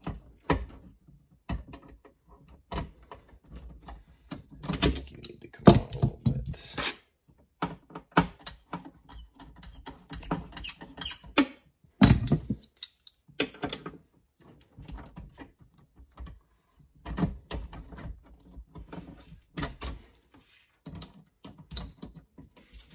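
Irregular clicks, scrapes and knocks of metal pliers and a ground wire against the metal breaker panel box as the wire is worked into place on the ground bar, with louder knocks about six and twelve seconds in.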